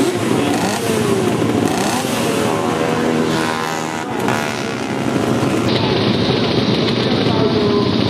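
Several classic racing motorcycle engines running together, their pitches rising and falling as they are blipped, with one engine holding a steady note midway. The sound changes abruptly nearly six seconds in.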